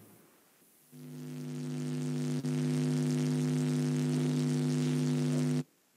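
Electrical mains hum: a steady buzz that swells in about a second in, holds level, and cuts off suddenly near the end.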